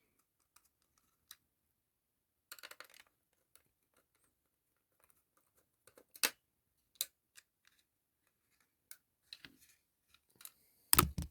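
Scattered small clicks and scrapes of a screwdriver working on the plastic and metal parts of a set-top box, then a louder knock near the end as the screwdriver strikes the camera.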